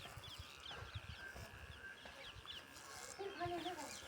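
Many small birds chirping, short quick falling notes, with one short pitched animal call, bleat-like, about three seconds in.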